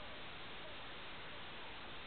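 Steady faint hiss of room and recording noise, with no distinct sound standing out.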